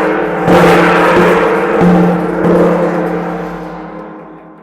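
Dinner gong struck several times in the first two and a half seconds, its deep tone ringing on between blows and then fading away. It is the signal that it is time to eat.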